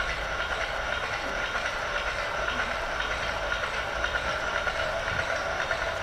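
Leather polishing machine running steadily, its glass roller burnishing a dyed skin: a steady hum with a fast, even mechanical rattle.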